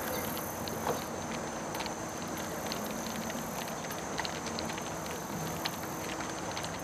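Steady rush of water running through a shallow river riffle, with faint scattered ticks and a faint low hum underneath.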